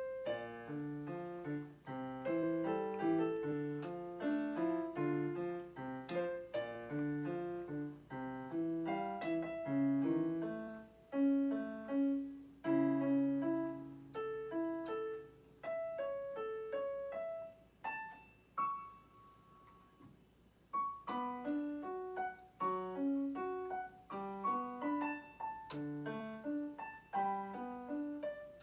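Solo piano playing a melody over low left-hand notes. Around the middle it thins to a few quieter, held notes, then the full playing picks up again.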